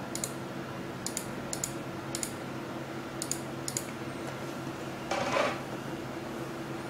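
Computer mouse and keyboard clicks: a handful of short, sharp clicks spread over the first four seconds, over a steady low hum. A brief rustle comes about five seconds in.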